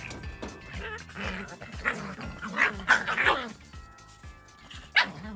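Hokkaido dog giving several short, high-pitched calls over background music.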